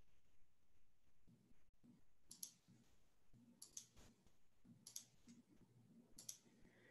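Faint computer mouse clicks, four of them a second or so apart, over near silence.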